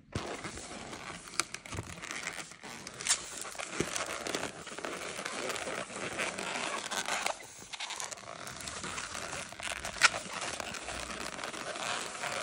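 Inflated latex modelling balloon being twisted and squeezed by hand: steady rubbery rubbing and crinkling against the fingers, with a few sharp clicks, the loudest about ten seconds in.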